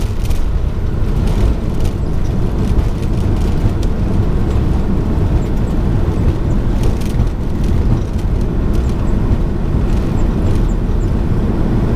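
Steady cockpit rumble of a Boeing 737 rolling fast down the runway, engine noise mixed with wheels on the pavement.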